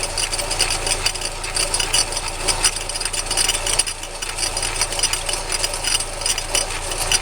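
Toyota Tacoma transfer case clattering steadily with many rapid ticks at its output end, over the running engine, with the truck in gear in two-wheel drive and the driveshaft removed. Because the noise remains with the driveshaft out, it is not the double cardan joint, and the owner puts it down to the transfer case.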